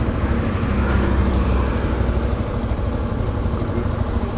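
Yamaha XTZ 250 Ténéré's single-cylinder engine running steadily at an even, low engine speed, with no revving.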